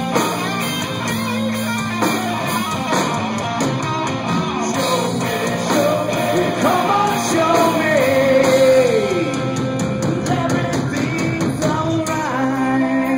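Live rock band playing loud: electric guitars over bass and drums, with a long held note that slides down about nine seconds in, and singing near the end.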